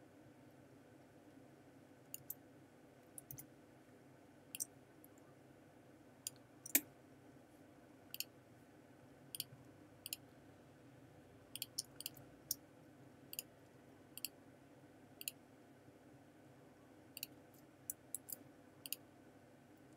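Irregular clicks of a computer mouse and keyboard shortcut keys, roughly one a second, with one louder click about seven seconds in, over a faint steady hum.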